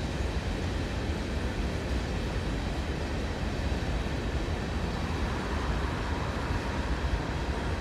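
Empty coal hopper cars of a freight train rolling past, a steady low noise of steel wheels on rail.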